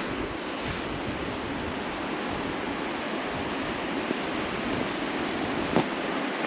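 Spate river's water rushing steadily, an even hiss of running water, with a single brief knock near the end.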